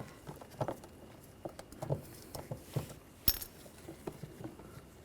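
Scattered light clicks and taps of a 7 mm socket and wrench working a screw out of a car's interior door panel, with one sharper click about three seconds in.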